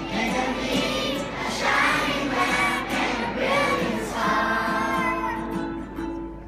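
Children's choir singing with a man's voice and a strummed acoustic guitar; the final held note fades out near the end.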